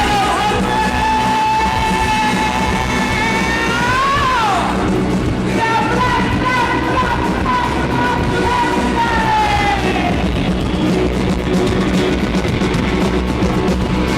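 Rock music with a singer holding two long notes: the first bends upward and drops away about four seconds in, the second is held and sags off about ten seconds in, over full band backing.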